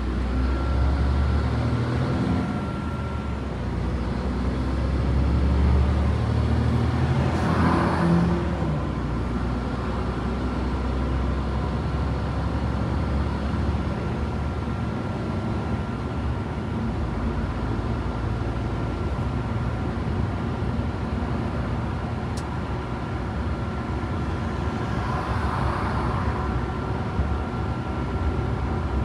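Inside the cab of a Mercedes-Benz truck cruising on a motorway: a steady low engine drone with tyre and wind noise and a faint steady whine. A rushing noise swells and fades about eight seconds in and again near the end.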